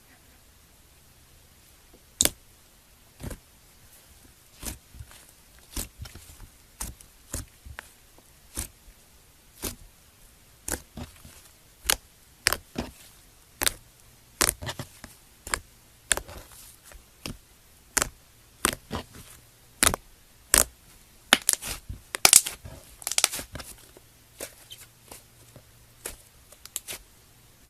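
Crunchy slime being squeezed and pressed, giving sharp crackling pops about once a second that come thicker and louder a little past two-thirds of the way through.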